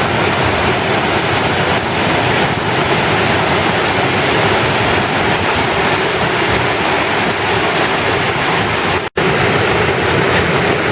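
Waterfall with a loud, steady rush of falling water, broken once by a momentary gap about nine seconds in.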